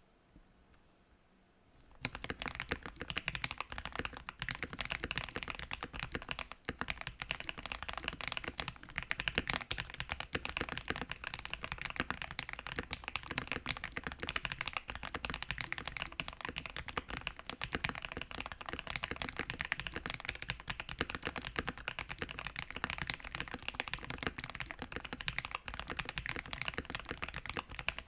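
Gamakay TK68 mechanical keyboard with lubed Gateron KS-9 Yellow switches, PBT keycaps and a PE foam mod, typed on fast and continuously. It makes a dense stream of deep key strokes, the creamy thock of the foam mod, starting about two seconds in.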